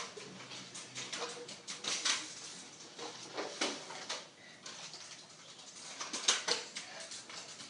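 Kick scooters rolling and clattering on a hard indoor floor: scattered irregular clicks and knocks of wheels and decks.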